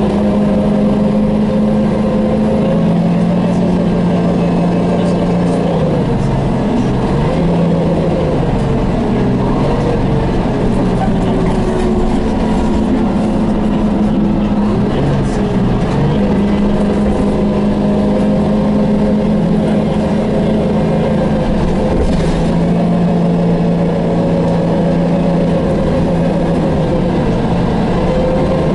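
Detroit Diesel 6V92TA two-stroke V6 diesel of a 1990 MCI Classic city bus running under way, heard from inside the passenger cabin. The engine pitch falls and rises several times as the bus slows, pulls away and changes speed.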